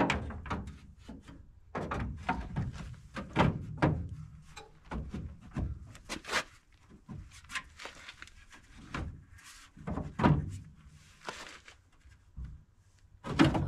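A welded metal front-end frame being fitted onto a Citroen AX's front: a string of irregular thunks, knocks and scrapes as it is pushed against the bodywork and into place.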